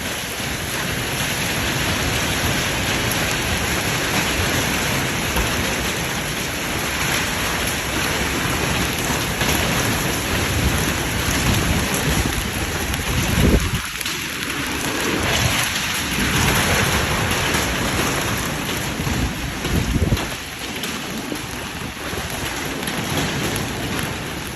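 Storm-driven rain and hail pounding on a hangar in near-hurricane wind, a steady dense roar, with the doors and windows rattling. Two louder low thumps, about halfway through and again a few seconds later, stand out from the roar.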